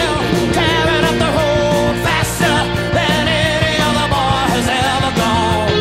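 Rock music: a full band with drums and a wavering lead melody line.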